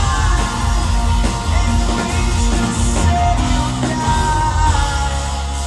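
Live pop-rock band with electric guitars, keyboards and drums playing with a lead vocal, recorded from the audience in a large hall.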